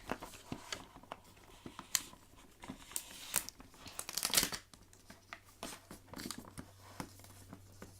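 Wrapping on a toy package being handled and pulled open: irregular crinkling and tearing with small clicks.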